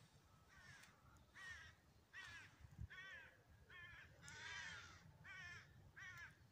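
A crow-family bird cawing in the distance: a faint series of about eight harsh calls, each under a second apart.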